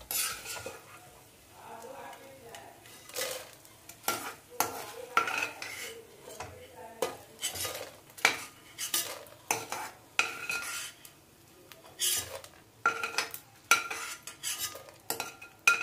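Steel ladle scraping and clinking against a stainless steel kadhai as puffed, fried gond (edible gum) is scooped out of hot ghee, in many short, irregular strokes. The ghee sizzles faintly underneath.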